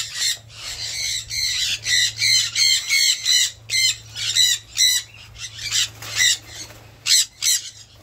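Parrots squawking over and over in harsh, high screeches, about two a second, with a short lull late on.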